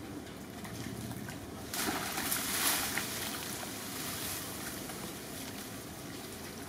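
Shallow muddy rainwater stream running, with splashing and sloshing as young monkeys wade through it; the splashing is louder for a second or so about two seconds in.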